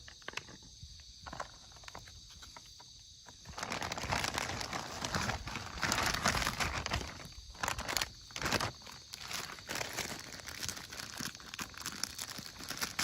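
Crinkling and crunching of dry cat food and its packaging as stray cats are fed. It starts about three and a half seconds in as a dense run of sharp crackles and carries on.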